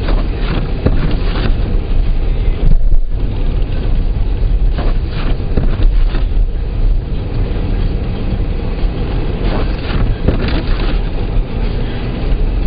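Steady rumble of a car driving through a snowstorm, with wind buffeting the microphone; the noise swells in several surges.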